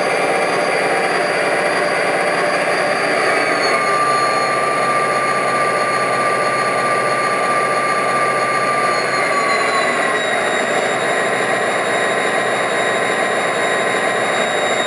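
Digital diesel sound from an MTH Premier CSX SD35 O-gauge model's Proto-Sound 2.0 speaker: a steady prime-mover rumble with a whine over it. The whine slides down in pitch about four seconds in and again about ten seconds in.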